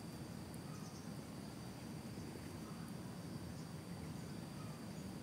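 Outdoor ambience of insects: a steady high-pitched whine with faint scattered chirps over a low rumbling noise.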